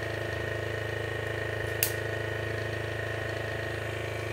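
Waterpik Aquarius Professional water flosser's pump motor running with a steady hum, with a single sharp click about two seconds in.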